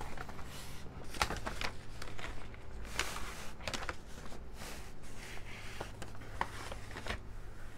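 Large paper plan sheets rustling as they are slid and smoothed across a table, with scattered light clicks and knocks as small weights are set down on the corners.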